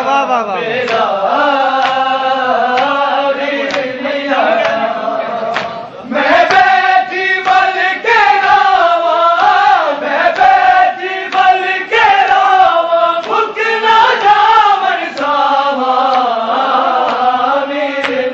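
A group of men chanting a devotional chant in unison, a sung melody with long pitch glides, with sharp slaps recurring every second or two. It briefly dips about six seconds in and comes back louder.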